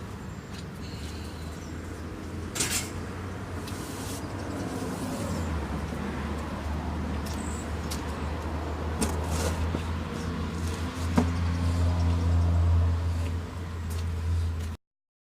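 A motor vehicle engine running with a steady low hum that grows louder twice, with a few sharp clicks and knocks over it. The sound cuts off abruptly just before the end.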